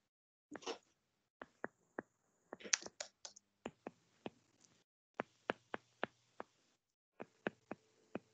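Faint typing on a computer keyboard: about twenty separate keystrokes at an irregular pace, with short pauses between runs.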